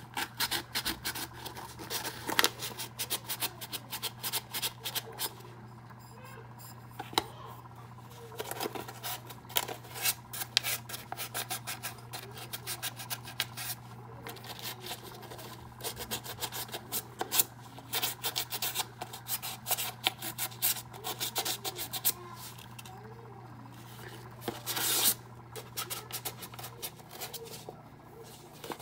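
Foam-backed sandpaper rubbed by hand over a glitter-coated ceramic cup in runs of quick scratchy strokes with short pauses, smoothing the clear coat over the glitter.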